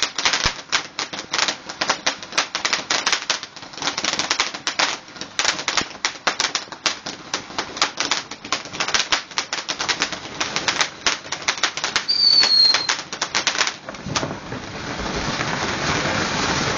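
Fireworks going off in a rapid string of sharp cracks and bangs for about fourteen seconds, with a brief falling whistle near the end of the volley, which then gives way to a steady hiss.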